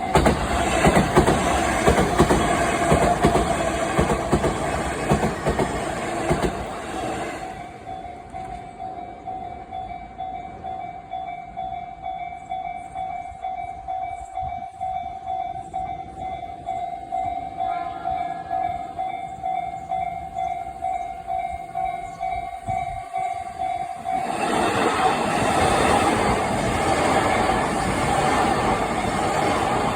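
Japanese level-crossing warning bell ringing in a steady electronic ding about twice a second while a Nanbu Line electric train rushes through. The train fades after about seven seconds, leaving the bell alone, and a second train passes in the other direction from about 24 seconds in.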